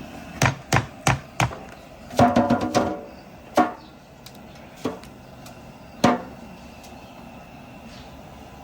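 Cleaver chopping on a wooden block. There are four quick strikes, then a rapid clatter of knocks with a slight ring about two seconds in, then three single chops spaced more than a second apart.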